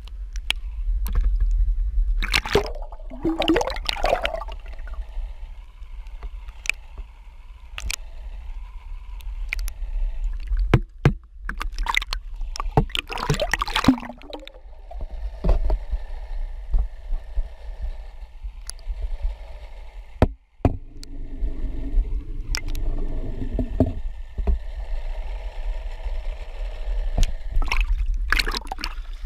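Sea water sloshing and splashing around a camera's waterproof housing as it is dipped at and just below the surface, muffled, with a heavy low rumble and irregular sharp splashes and knocks as it breaks the waterline.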